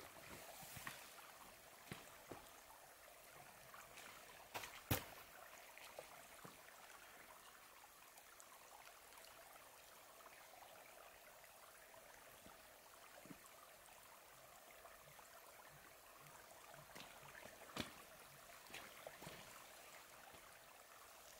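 Near silence: a faint, steady hiss of background noise, broken by a few short, sharp clicks, the loudest about five seconds in and another near the end.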